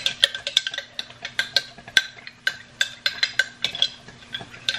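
A spoon stirring and scraping inside a jar of leftover white sauce loosened with a little milk. It clinks quickly and irregularly against the jar's sides, several times a second, each clink ringing briefly.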